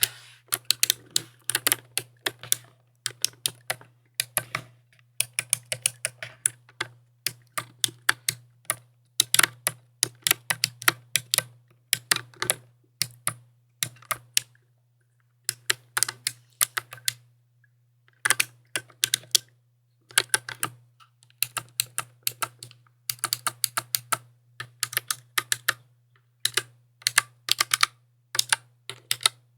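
Mechanical keyboard being typed on in quick runs of sharp key clicks, with brief pauses between the runs.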